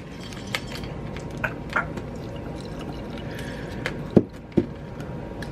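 Liquid pouring steadily into a container, with scattered light clicks and two short knocks a little past four seconds in.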